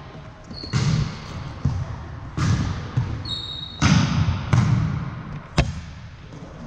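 Volleyball rally on a hardwood gym court: a handful of sharp smacks of the ball off players' arms and hands, echoing in the large hall, with short sneaker squeaks on the floor.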